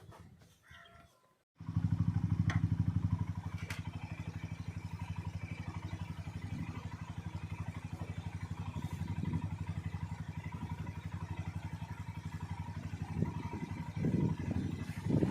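Motorcycle engine idling with an even pulsing beat. It comes in suddenly about a second and a half in, loudest for the first second or so, and has a few brief louder blips near the end.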